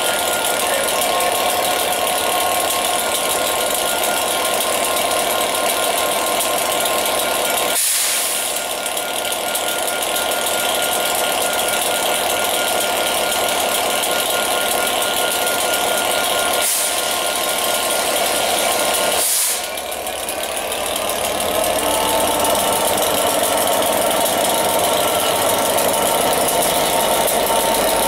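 Class 67 diesel locomotive's EMD two-stroke V12 engine idling with a steady whine. About two-thirds of the way through it throttles up to pull away, and the engine note changes and gets louder.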